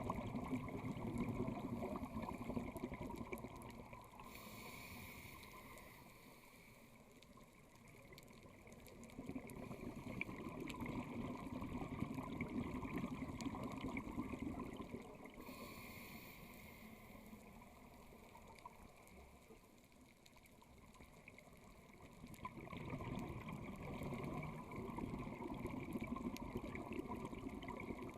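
Scuba diver breathing through a regulator underwater: a short hiss on each inhale, then a long stretch of bubbling exhaled air, in a slow cycle of roughly eleven to twelve seconds.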